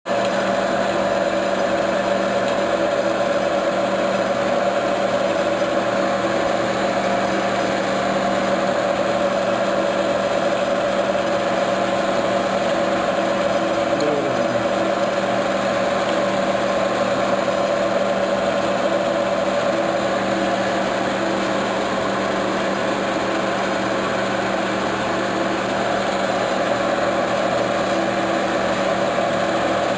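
Metal lathe running under power, its chuck spinning a bar while it is turned down: a steady machine hum with an even hiss.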